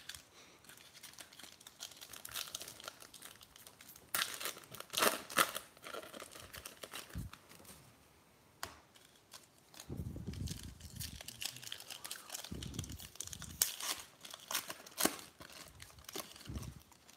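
Foil wrappers of Diamond Kings baseball card packs crinkling and tearing as the packs are ripped open and the cards handled, in several irregular bursts of crackling.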